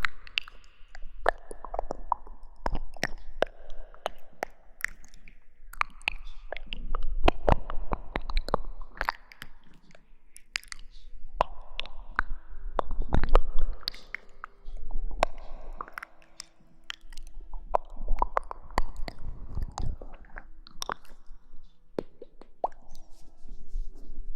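Close-miked ASMR rustling and crackling, dense sharp crackles in waves that swell and fade every couple of seconds, over a low steady hum.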